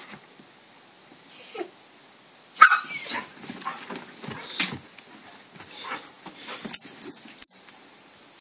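Dog whining and yipping, with a short falling whine a little over a second in and a sharp yelp about two and a half seconds in, followed by a run of uneven whimpers and yips.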